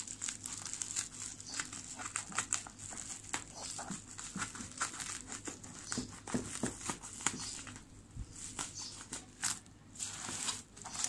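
Bubble-wrap plastic packaging crinkling and rustling as it is handled by hand, in many irregular small crackles.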